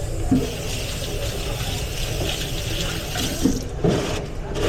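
Water running from a kitchen sink tap for about three and a half seconds, starting just after the start and shutting off near the end, over a steady low kitchen rumble.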